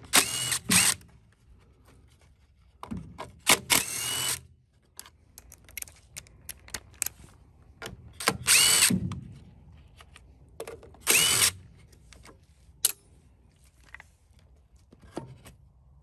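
DeWalt cordless drill with a 5/16 socket spinning in four short runs, its motor whine rising and falling in pitch each time, as it backs out the bolts holding the plastic airbox on a Briggs & Stratton mower engine. Small clicks and clinks of bolts and parts come between the runs.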